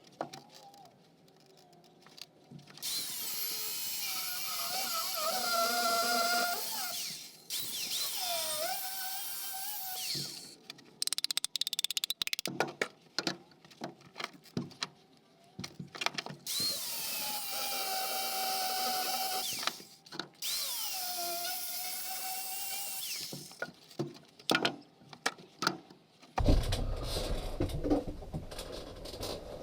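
A handheld power tool runs in two long bursts, its motor whine sagging under load and gliding back up. Metal clanks and rattles come between the bursts, and a heavy low rumble of handling noise starts near the end.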